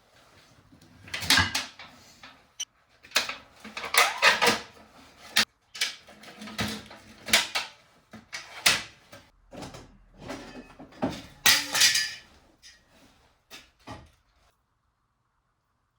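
Hand work on wood: a series of irregular scraping and rubbing strokes, each under half a second, that stop about a second and a half before the end.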